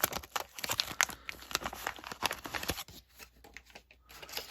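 Crinkling and tearing of a trading-card pack wrapper being ripped open by hand: a dense run of crackles for about three seconds, then a few scattered rustles.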